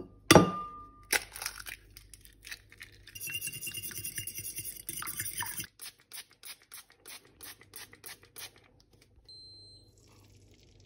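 An egg cracked sharply on the rim of a ceramic bowl, twice, the bowl ringing briefly. Then rapid clinking and scraping as the eggs are beaten in the bowl, followed by a one-calorie cooking oil spray pumped in quick squirts onto a non-stick frying pan, about four a second. A short electronic beep near the end.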